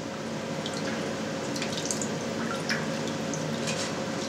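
Whey dripping from freshly pressed brynza cheese and its plastic mould into a stainless steel tray: a few scattered drips and light taps over a steady background hiss and hum.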